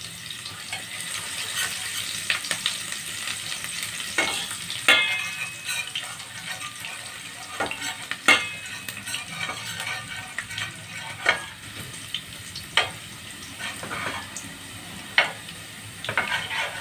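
Garlic and ginger sizzling steadily in hot oil in a stainless steel pot, stirred with a metal spoon that knocks against the pot about eight times at uneven intervals, some knocks ringing briefly.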